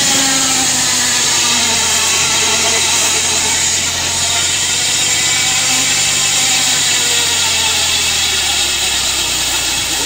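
Tractor engine running steadily under load, driving a circular saw bench as a log is fed lengthwise through the blade. The sound is loud and continuous.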